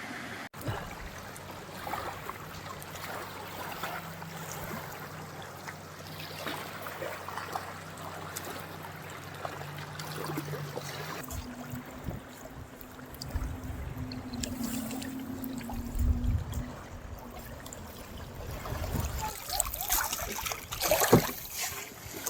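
Water trickling and flowing in a stream, with scattered louder splashes toward the end and a faint low hum in the middle.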